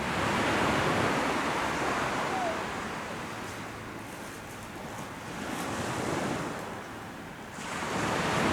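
Sea surf breaking and washing on the shore in slow swells, loudest at the start and again near the end.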